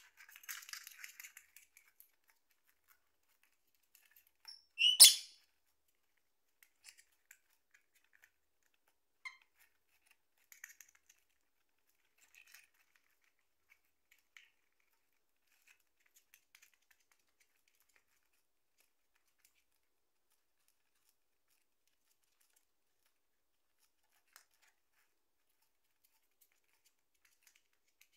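Rosy-faced lovebird chewing and snipping at a cardboard paper-towel tube with its beak: a short patch of crackly nibbling at the start, then sparse faint pecks and clicks. A single short, sharp, loud sound comes about five seconds in.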